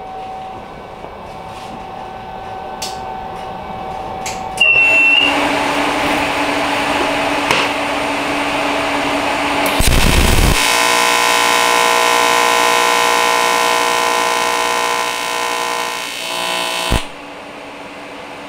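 AC TIG welding arc on aluminum, set to 110 amps, buzzing steadily while a puddle is formed. The arc strikes about four and a half seconds in with a brief high squeal. It buzzes louder and more evenly from about ten seconds in, and cuts off about seventeen seconds in.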